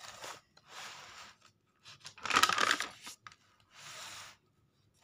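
Paper rustling as the pages of a notebook are turned and handled, in four short rustles; the loudest comes about two and a half seconds in.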